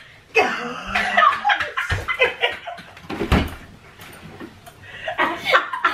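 Dull thumps and scuffling of people falling and scrambling on a carpeted floor after a failed partner yoga pose, with a voice near the end.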